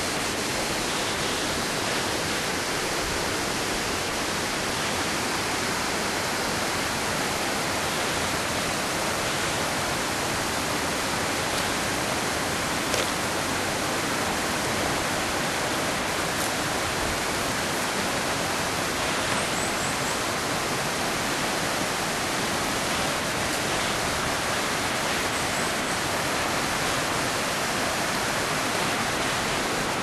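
Steady, even rushing of a nearby waterfall, unbroken throughout, with a couple of faint high chirps over it.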